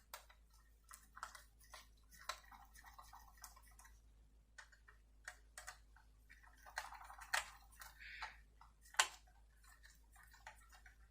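Faint, irregular clicks and light taps of small die-cast metal and plastic model-car parts being handled and fitted by hand, with a short scrape about seven seconds in.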